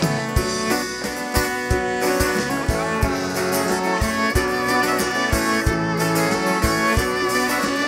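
Live band playing an instrumental passage: violin and bowed cello over strummed acoustic guitar, with drums keeping a steady beat.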